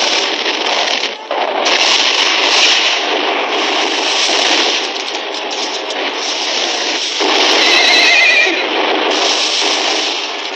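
Dense battle din from an old, thin-sounding film soundtrack: a cavalry charge with horses galloping, and a horse whinnying about eight seconds in.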